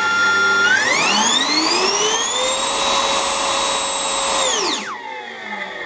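Electric motor spinning a 100 mm centrifugal compressor impeller up to speed: a whine that climbs steadily in pitch over about two seconds with a rush of air, holds at top speed, then drops away near the end as the motor is throttled back and the impeller winds down. The compressor is blowing air through the newly fitted combustion chamber, building pressure ahead of the flame tube.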